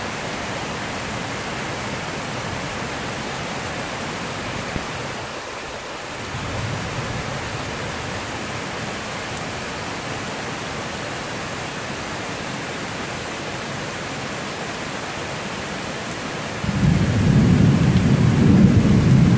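Heavy rain falling steadily, a constant hiss. Near the end a loud low rumble sets in and stays to the close.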